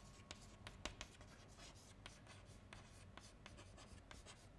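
Chalk writing on a blackboard: faint, quick, irregular taps and short strokes of the chalk as letters are formed.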